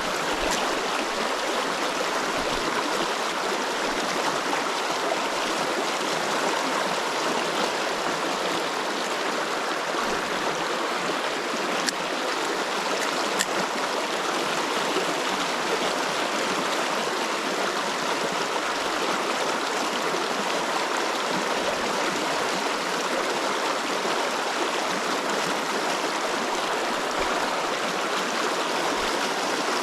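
Small river's current rushing steadily over its bed, an even, unbroken water noise.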